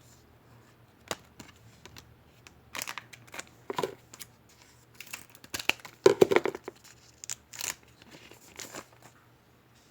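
A baseball card pack wrapper being torn open and crinkled by hand, a series of sharp crackles and rustles, loudest about six seconds in.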